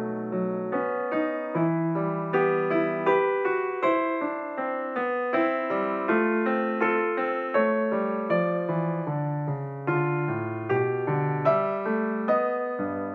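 Background piano music: notes and chords struck one after another, each dying away.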